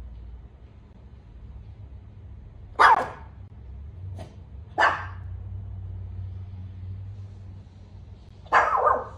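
A Pomeranian barking at being shut in alone: short, high barks about three seconds in, near five seconds and near the end, with a fainter one just after four seconds, over a low steady hum.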